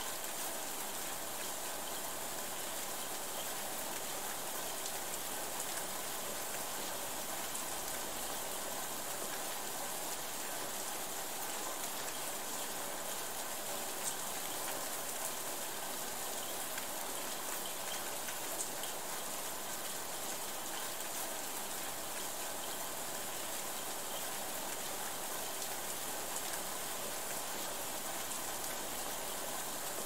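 Steady rain falling as an even hiss, with a few single louder drop hits now and then.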